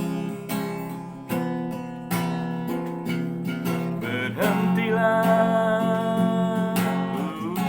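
Acoustic guitar strummed in a steady rhythm of chords, with a voice coming in about halfway through to sing long, wavering notes.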